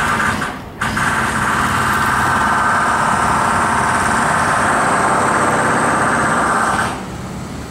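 A loud, steady engine or motor running: it starts abruptly, breaks off briefly just under a second in, then runs evenly and drops away about seven seconds in.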